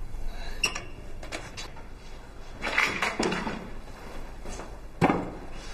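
A few light knocks and clicks of objects being handled, with a short scraping stretch around three seconds in and a sharp knock about five seconds in.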